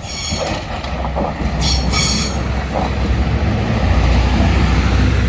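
A small train passing close by: high-pitched wheel squeal in short spells in the first two seconds, over a low rumble that grows loudest near the end.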